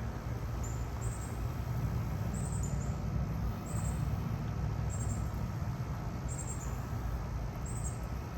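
Outdoor background: a steady low rumble with faint, short high chirps repeating about once a second.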